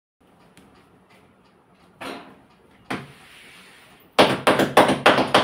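Jowar roti dough being patted flat by hand on the kitchen counter: quick, even slaps, about five a second, starting a little after four seconds in. Before that, two single knocks about a second apart.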